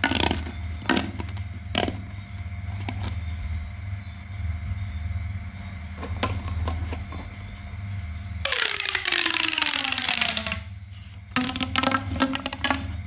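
Hands crafting a small toy: scattered sharp clicks and taps of materials being handled over a steady low hum. About eight seconds in comes a two-second rushing, scraping sound whose pitch falls as it goes, followed by more clicks.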